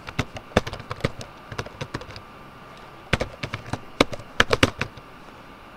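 Computer keyboard keys being typed, an email address going in, in two runs of rapid clicks with a pause of about a second between them.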